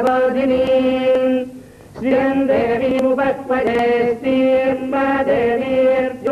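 Vedic hymns chanted by a male voice, or voices, in long syllables held on a steady pitch, with a short break about a second and a half in.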